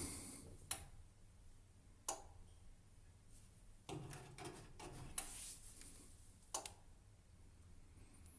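Relay in the control board of a 1000 W electric convector heater clacking with faint, sharp clicks spaced a second or more apart as it keeps switching at start-up: the fault the heater is being repaired for. Soft handling rustle at the control knob in the middle.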